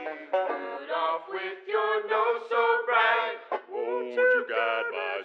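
Male voices singing a Christmas song as part of a medley, in short sung phrases with changing notes.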